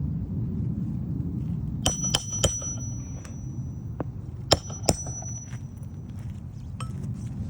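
Hammer blows on metal during shingle nail work, each with a bright bell-like ring: three quick strikes about two seconds in, then two more a couple of seconds later. A steady low rumble runs underneath.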